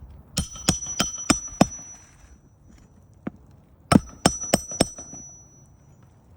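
Hammer striking a roof snake to drive a roofing nail under the overlapping shingle. A run of five sharp metallic blows with a high ring, a single light tap, then four more blows.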